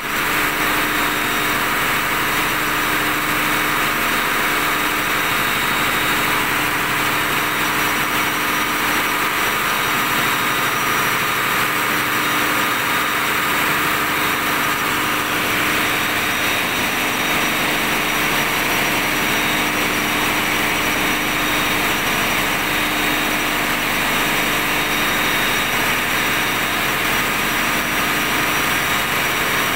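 Ship's auxiliary diesel generator sets running in the engine room: a loud, steady machinery din with a few constant whining tones over it.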